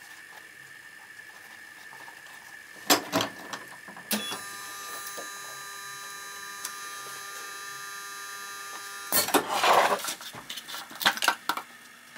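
Hardo shoe press clamping a shoe to mount the heel: a couple of sharp clanks about three seconds in, a steady machine hum of several tones for about five seconds while it holds the shoe, then a loud noisy burst as it releases, followed by a few knocks.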